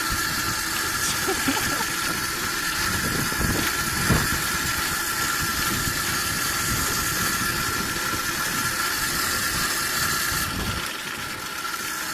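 Electric mini bike riding along, its 12-volt DC drive motor giving a steady whine over a constant hiss. The sound eases a little near the end.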